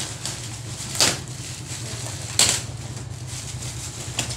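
Parcel wrapped in black plastic, with a cardboard box inside, being cut and torn open with a knife: crinkling and scraping, with two sharp rips about a second and a half apart. A steady low hum runs underneath.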